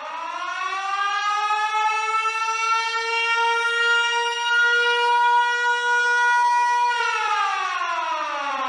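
Air-raid siren winding up: one wailing tone rises in pitch over about three seconds, holds steady, then starts to wind down and fall in pitch about seven seconds in.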